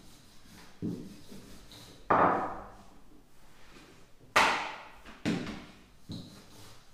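Wooden rolling pin rolling out a stack of layered pastry dough: a handful of sharp wooden knocks and rolling strokes, each fading away, the two loudest about two seconds and four and a half seconds in.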